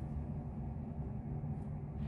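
Low, steady rumble of distant traffic.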